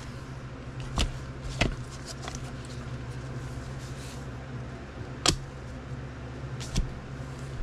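A few sharp clicks and taps of rigid plastic card holders being handled and set down on a wooden tabletop, spaced out over several seconds, over a steady low hum.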